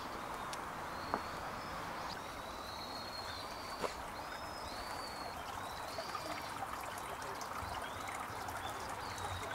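Steady trickle of running water, with a small bird giving short, high arching calls again and again over it and a couple of sharp clicks.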